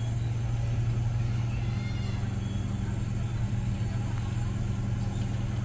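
Steady low drone of a RoRo passenger ferry's diesel engines as the ship approaches the pier to dock, with faint voices in the background.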